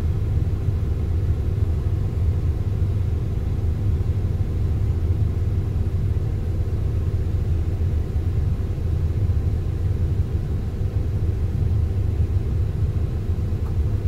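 Vehicle engine idling, a steady low rumble heard from inside the cab.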